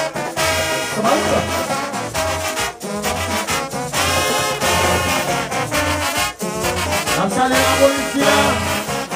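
Haitian rara band music: horns blare a repeating figure over a steady low beat that returns about once a second.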